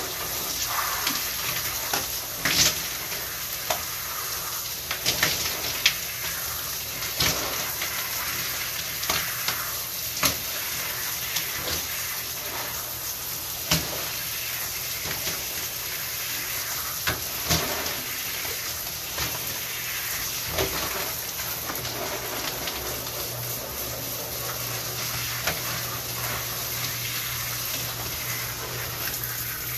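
Shower water running in a steady hiss, with irregular sharp taps and splashes throughout.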